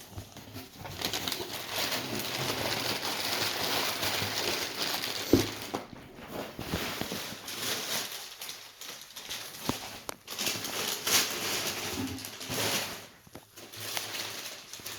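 Paper wrapping and packing material rustling and crinkling as a box is searched by hand, steadiest over the first six seconds, then in scattered short crackles and taps.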